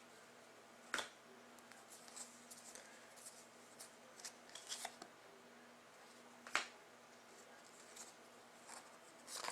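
Faint handling of trading cards: soft slides and light clicks as cards are moved through by hand, with two sharper ticks, one about a second in and one about two-thirds of the way through.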